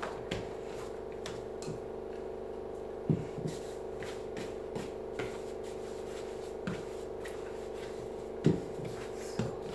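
Hands folding and pressing bread dough on a floured baking mat: soft, irregular thumps and rubs, a few a few seconds apart, the clearest about three seconds in and again near the end, over a steady hum.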